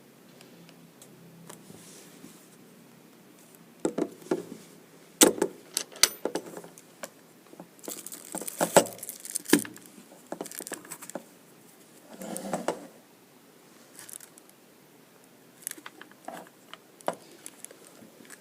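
A G-Shock watch and its packaging being handled: scattered sharp clicks and taps, a few short stretches of rustling, and light clinking.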